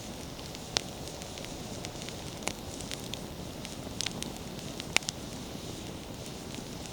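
Wood bonfire burning, with a steady low rush of flame and scattered sharp crackles and pops from the firewood; the loudest pops come just under a second in and about five seconds in.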